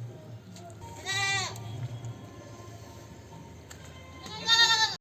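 Goats bleating twice: a call about a second in and a louder, longer one near the end.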